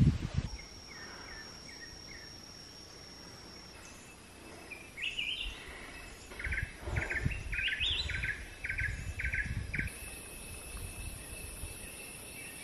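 Tropical forest ambience: a bird calling in a run of quick repeated chirps through the middle, over steady high-pitched insect drones, with low rumbles underneath.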